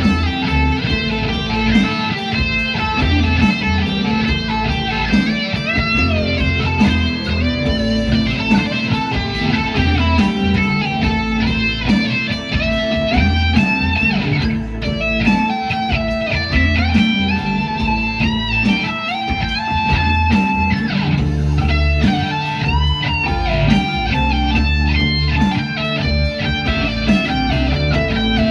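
Music led by a guitar playing a melody with bending, sliding notes over a steady low bass part.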